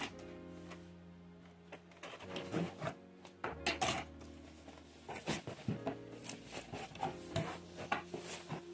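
Cardboard shipping box and paper being handled and unpacked: short irregular rustles, scrapes and taps, over soft background music.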